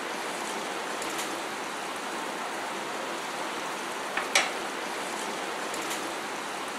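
Sugar syrup boiling hard in a nonstick frying pan, a steady hissing bubble like rain. One sharp tap sounds a little past the middle.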